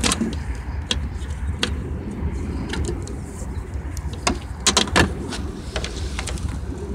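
Scattered sharp clicks and knocks of a garden fountain being handled and tipped onto its side. The loudest knocks come about four and a half to five seconds in, over a steady low rumble.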